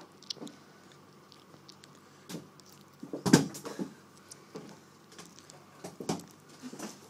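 Scattered thumps and knocks of a ball being kicked about in an office during an indoor soccer game, with one loud, heavy thump a little over three seconds in.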